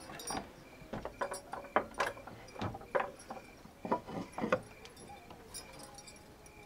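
Old wooden plank door with a metal latch and bolt being handled by hand: a run of about a dozen rattling clicks and knocks over four and a half seconds, then it goes quiet.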